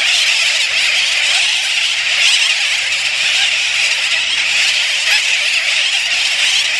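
A large colony of seabirds calling all at once: a steady, dense din of countless overlapping high calls.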